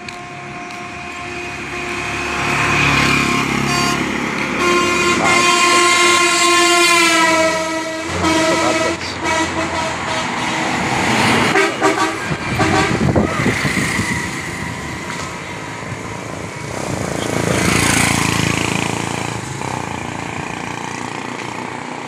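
Road traffic passing close by. A vehicle horn sounds for about three seconds, its pitch sliding down as the vehicle passes. Several vehicles go by in swells of road noise.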